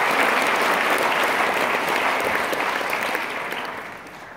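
Audience applauding, the applause dying away over the last second or so.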